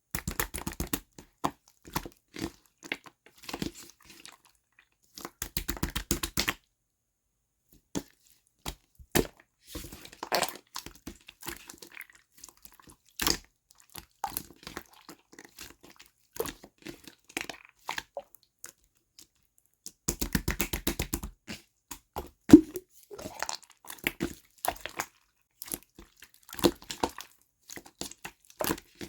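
Slime being squeezed, stretched and poked by hand, making sticky clicks and crackles, with three runs of quick, evenly spaced pops.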